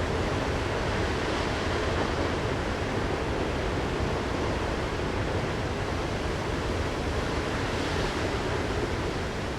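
Steady rush of the Krimml Waterfalls: a dense, even noise of falling and spraying water.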